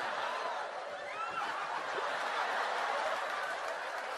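Theatre audience laughing: a steady wash of crowd laughter, with a voice or two standing out about a second in.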